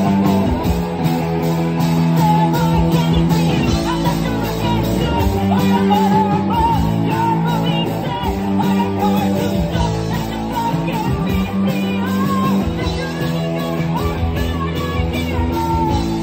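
Live rock band playing loudly: electric guitar, bass guitar and drum kit, with a woman singing lead into a microphone.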